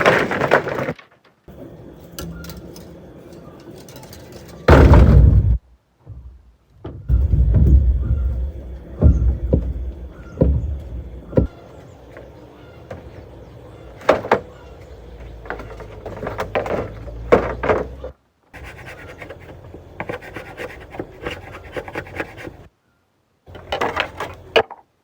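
Irregular wooden knocks and heavy thumps, some with deep low thuds, from timber being handled and struck in building work, in several short clips cut off abruptly.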